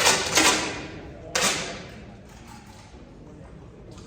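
Air rifle shots from shooters on the range: three sharp cracks within the first second and a half, each followed by a short ringing tail.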